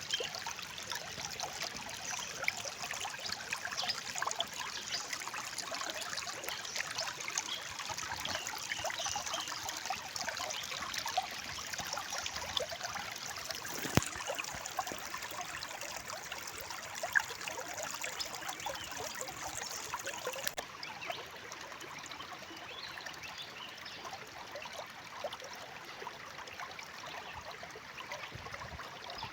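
A small stream trickling and babbling steadily over stones, with one sharp click about halfway through.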